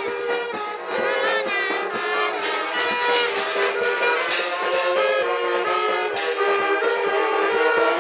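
Marching brass band of trumpets, trombones and saxophones playing a lively tune together, the horns holding notes and stepping from one to the next.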